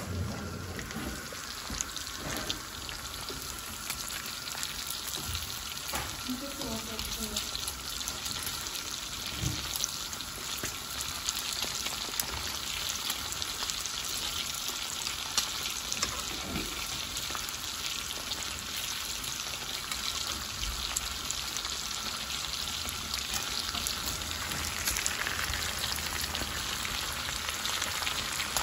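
Pieces of meat frying in fat in a pan: a steady sizzle with scattered crackles, a little louder in the second half.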